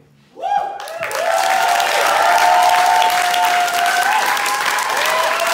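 A theatre audience bursts into loud applause about half a second in, with whoops and cheers over the clapping.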